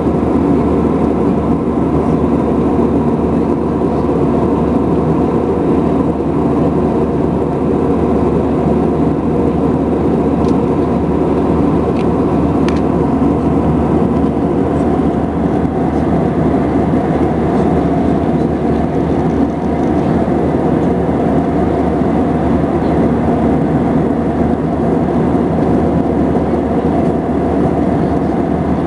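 Steady in-flight cabin noise of an Airbus A319 airliner: a constant drone of its engines and the airflow over the fuselage, heard from inside the passenger cabin.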